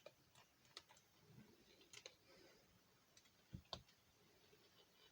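Faint clicks and taps of a tool working inside a drilled-out Master Lock padlock that is jammed, with two louder knocks a little after halfway.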